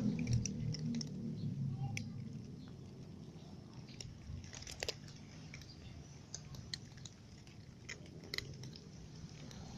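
Several cats chewing and crunching dry kibble, in irregular sharp crunches. A low rumble fades out over the first couple of seconds.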